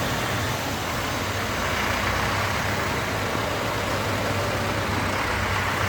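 Steady engine and road noise of a motor vehicle, with a constant low hum.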